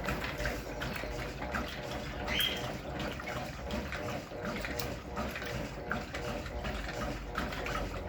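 Brastemp Clean 6kg washing machine running with water splashing and sloshing inside the tub over a steady motor hum.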